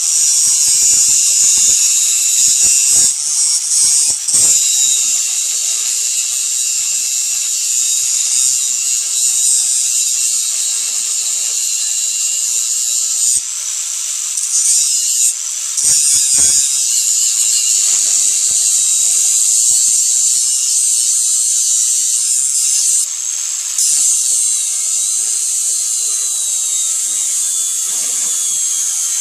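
Makita 4-inch angle grinder with a fiber metal cutoff wheel cutting through old cast iron drain pipe: a loud, continuous high-pitched whine as the disc grinds through the iron, with brief dips in pitch and level a few times where the cut loads the wheel or is eased off.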